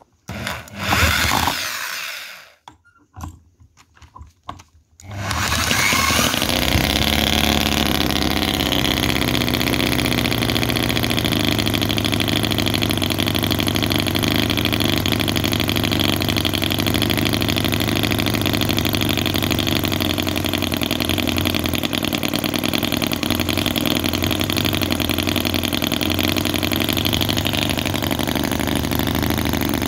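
Microcosm R28 4.3 cc 45-degree V-twin model petrol engine spun over in short bursts by a handheld starter, catching about five seconds in and then running steadily.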